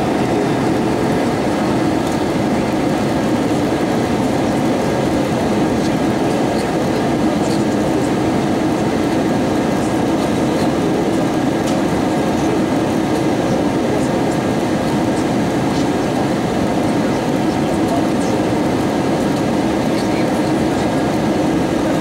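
Steady cabin noise inside an Airbus A320-232 airliner in flight: a constant rush of airflow over the fuselage blended with the hum of its IAE V2500 turbofan engines, with no change in level.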